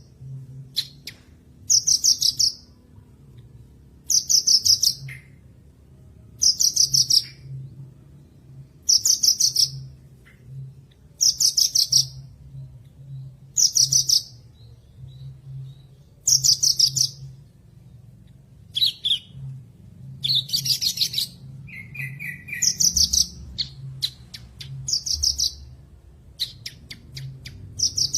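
Javan bush lark (branjangan) singing: short, rapid trilled phrases repeated about every two seconds, with one lower trill past the middle.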